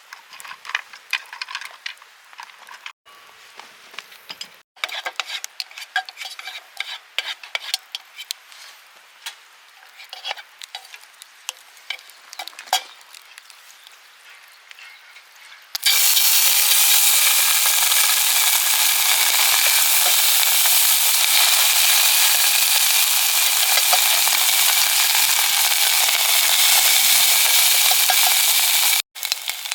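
Light clicks and scrapes of cooking utensils for the first half. About halfway through, a loud, steady sizzling of food frying in a hot pan starts abruptly.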